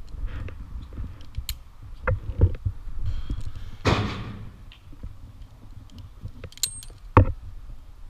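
Tree climber's rope gear and metal hardware clinking and knocking as he shifts position on the trunk: scattered light clicks and dull thumps, a louder thump a couple of seconds in and a sharp knock near the end. A brief rushing noise about halfway.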